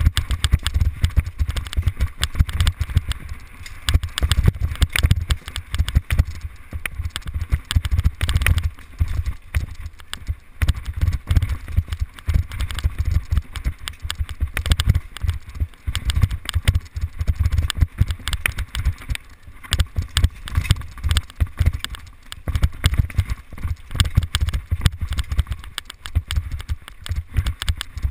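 Mountain bike clattering over roots and rough dirt singletrack at speed, heard from a camera riding along with it: a dense run of irregular knocks and rattles over a steady low rumble.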